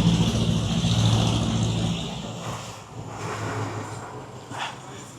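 Motor vehicle engine and road noise, swelling over the first couple of seconds and then fading away.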